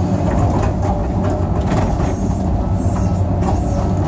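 Cat 385C L excavator's diesel engine and hydraulics running steadily under work, heard from inside the cab as a loud, even low hum.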